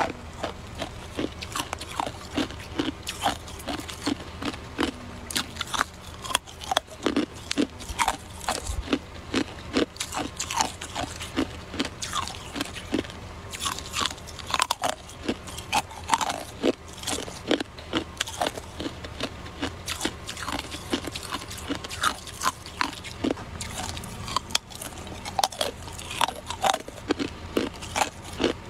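Hard clear ice being bitten and chewed: a continuous run of sharp, irregular crunches and crackles, several a second.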